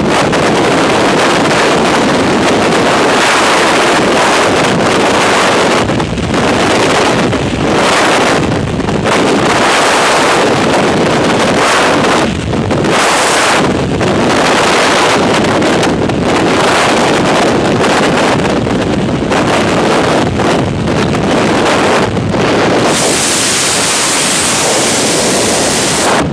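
Loud rush of freefall air buffeting a skydiver's camera microphone, with the level dipping slightly every second or so as the body shifts in the airflow. The rush turns hissier near the end.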